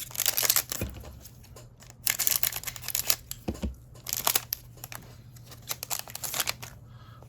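Foil trading-card pack wrapper being torn open and crinkled by hand, in several rustling spells with a couple of soft thumps on the table.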